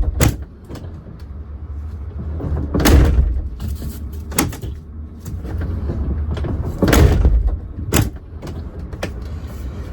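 Mercedes Econic truck cab door being worked to test a repaired outside door handle: latch and handle clicks and the heavy door shutting and opening, with two loud thuds about three seconds in and again about seven seconds in, plus sharper clicks between. The handle is being tested after its return spring was remounted so the latch can release from outside.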